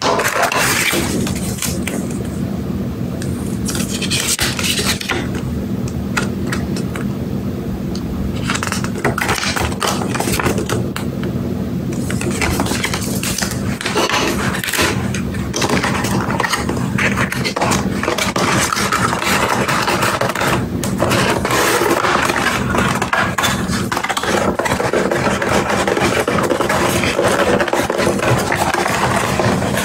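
Cardboard tablet box and paper inserts being handled, with rustling, scraping and light knocks and taps. Underneath runs a steady low hum.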